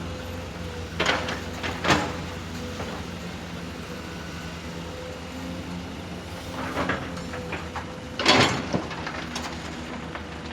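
Earthmoving machine running with a steady hum and a thin whine, broken by four short bursts of scraping and rattling at about one second, two seconds, seven seconds and eight seconds in. The loudest burst is near the end.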